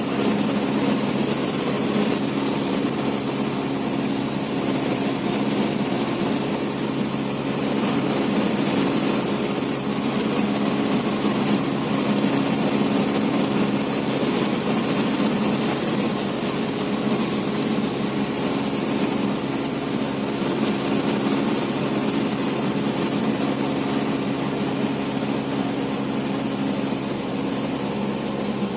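Cessna 172's single piston engine and propeller droning at a steady pitch, over an even rush of noise.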